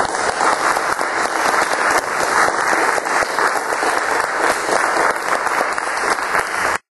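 Audience applauding, a dense patter of many hands clapping at the end of a talk, which cuts off suddenly near the end.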